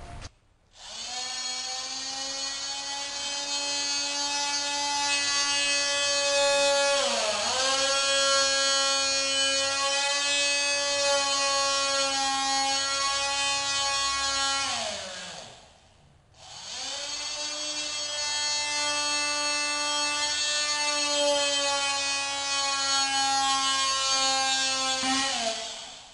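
Corded oscillating multi-tool with a plunge-cut blade cutting into prefinished parquet boards: a steady, high buzzing whine. It runs twice, about fifteen seconds and then about nine, switched off in between, and its pitch dips briefly about seven seconds in.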